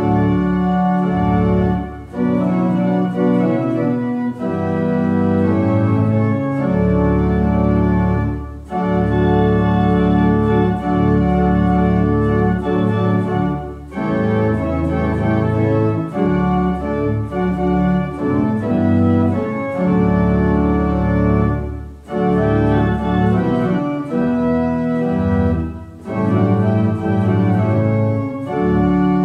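Two-manual organ playing a hymn in held chords, with short breaks between phrases every few seconds.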